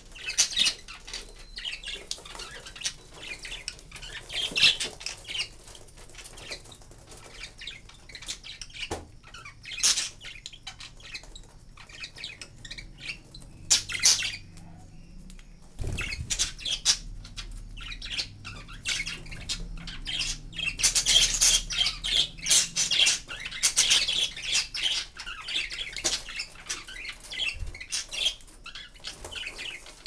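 Pet budgerigars chirping and chattering in short, high-pitched calls, busiest in the second half.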